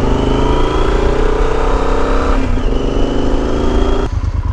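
Yamaha Super Ténéré's parallel-twin engine accelerating under way, its pitch rising steadily. A short break about two and a half seconds in, as it shifts up, is followed by a second rise. The throttle closes near the end.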